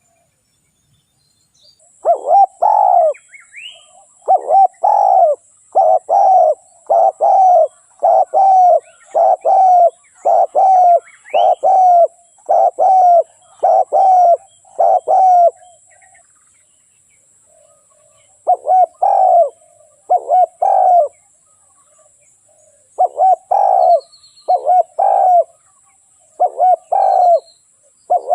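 Spotted dove cooing: long runs of short, repeated low coos, one long series, then after a short pause two shorter series. Faint high chirps of other small birds sound above.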